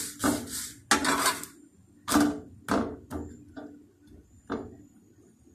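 Metal slotted spatula scraping and pressing a flatbread against an iron tawa: quick rubbing strokes at first, then single scrapes that come further apart and fade.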